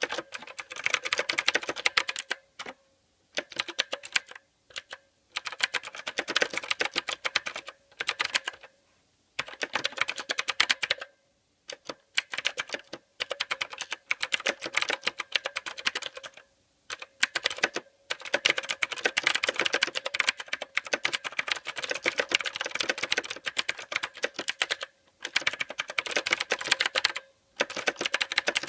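Mechanical keyboard being typed on: fast runs of sharp key clicks in bursts of a few seconds, broken by short pauses.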